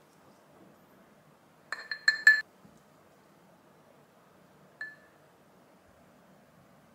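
Glass food storage bowls clinking as they are handled and filled with rice: four quick ringing clinks about two seconds in, then one lighter clink near five seconds.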